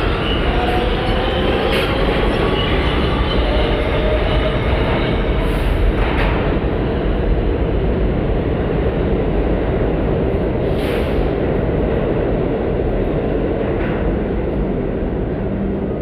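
Subway train running past in the station: a loud, steady rumble and rattle of wheels on rails, with faint wheel squeal in the first few seconds. Two brief hissing bursts come about five and a half and eleven seconds in.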